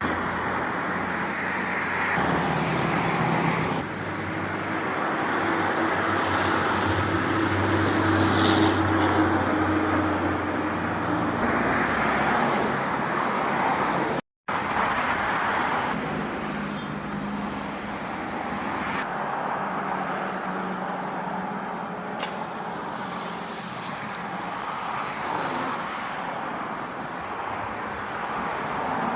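A motor vehicle engine runs steadily against road-traffic noise, broken once by a sudden brief cut to silence about fourteen seconds in.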